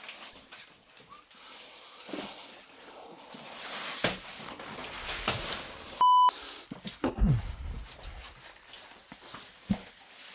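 A single short, steady beep about six seconds in, the loudest sound, with all other audio cut out beneath it: an edited-in censor bleep. Around it, scattered clicks and knocks of handling, with a low thud about a second after the beep.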